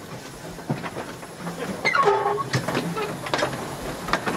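Narrow gauge Hunslet steam locomotive Covertcoat passing slowly at close range, its wheels and motion giving a run of irregular clanks and knocks on the track. A short wavering pitched sound comes about two seconds in.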